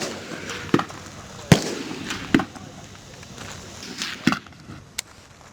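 Rifles firing on a marksmanship range: about five sharp shots at uneven intervals, from several shooters on the firing line.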